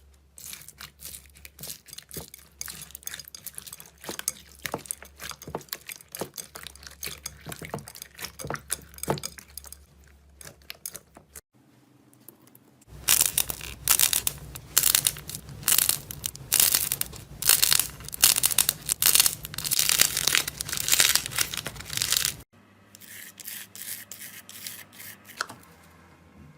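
Slime being handled, with dense crackling and popping in several short clips. The sound changes at cuts about 11, 13 and 22 seconds in, and the stretch from 13 to 22 seconds is the loudest.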